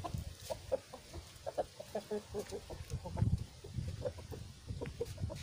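Domestic chickens clucking softly in short, irregular low clucks while being shooed into their mud coop, with a dull thump about three seconds in.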